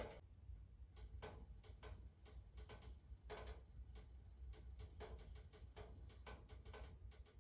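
Near silence with faint, irregularly spaced ticks and clicks over a low steady hum.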